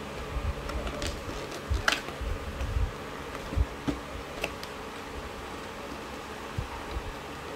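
Thin card being folded and its tabs pushed into slots by hand: short paper rustles, creases and light taps against the table, over a steady buzzing hum.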